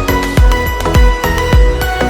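Background music with a steady beat: a deep drum thump a little faster than once a second under held melodic notes.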